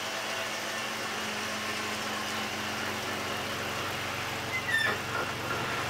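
2004 Jeep Liberty Limited's 3.7-litre V6 running at low speed as the SUV creeps into the garage, a steady engine hum. A brief high squeak sounds a little before the end.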